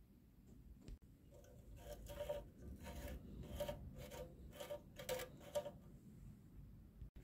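Faint series of short scraping and rubbing strokes, about two a second, as hands work small metal parts of a small engine's governor linkage.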